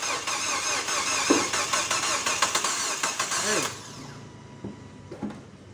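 Nissan Grand Livina's four-cylinder petrol engine running just after its first start following a piston-ring replacement. It runs loud at first, then drops noticeably quieter a little under four seconds in.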